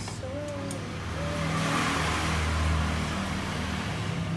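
A motor vehicle's engine and road noise swelling to a peak about two seconds in and easing off again, as of a vehicle passing by in the background.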